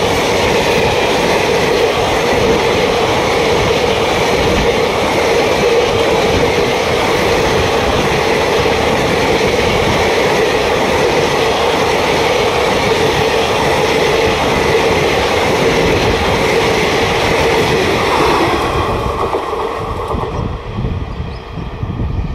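Indian Railways passenger coaches running past at speed close by: a loud, steady rush and rumble of wheels on rail with a steady hum in it. It dies down over the last few seconds as the train moves away.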